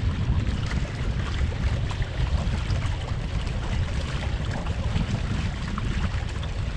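Wind buffeting the GoPro microphone in a steady low rumble, with water splashing and hissing along the hull of a sailboat under way.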